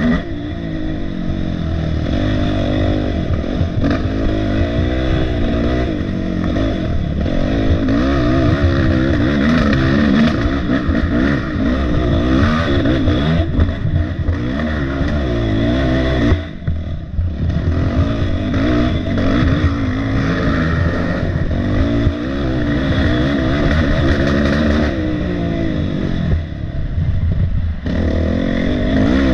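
Dirt bike engine heard close up from the rider's own bike, its revs rising and falling constantly as it is ridden hard along a race trail. The engine drops off briefly about 16 seconds in, then picks straight back up.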